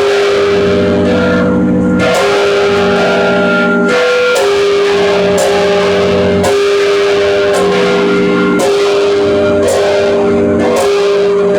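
Church bells of St John's Co-Cathedral ringing together, five bells struck again and again with their tones overlapping and ringing on between strikes.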